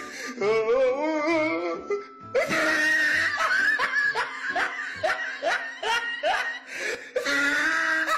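Laughter, bursts of snickering and chuckling, over background music.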